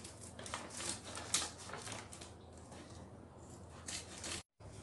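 Scissors cutting open the sewn top of a plastic cat litter sack: faint, irregular snips and rustles of the sack. The sound drops out for a moment near the end.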